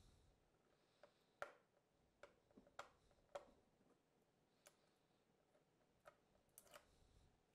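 Faint, irregular clicks and taps of a thin plastic Sea-Monkeys toy tank being handled, with fingers picking at tape stuck on it.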